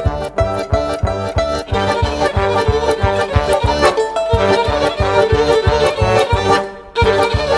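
Background music with a steady beat and layered melody instruments, dropping out briefly near the end before coming back in.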